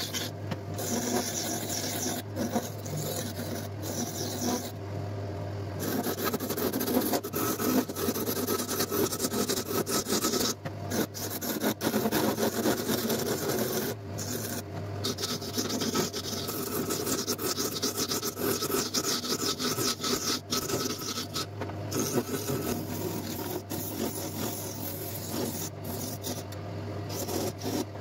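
Wood turning on a lathe: a tool scraping against the spinning wood over the steady hum of the lathe's motor, broken by a few short gaps.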